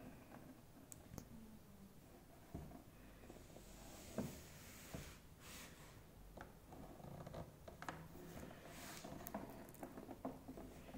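Quiet room with faint handling noises: scattered soft knocks and clicks, a louder knock about four seconds in, and brief rustling in the middle and again near the end.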